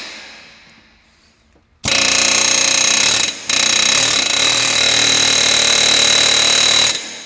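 Pneumatic air hammer rattling rapidly against a new wheel stud, driving it back through the wheel hub, with a high metallic ring. It runs in two bursts: about a second and a half, a brief pause, then about three and a half seconds.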